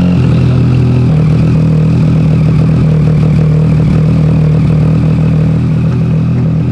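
Triumph Street Triple's inline three-cylinder engine, just started, idling steadily.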